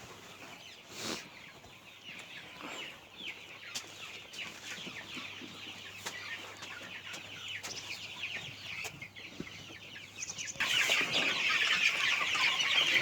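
A large flock of 26-day-old chicks peeping constantly in rapid, high, falling chirps, growing much louder about ten and a half seconds in. A brief knock sounds about a second in.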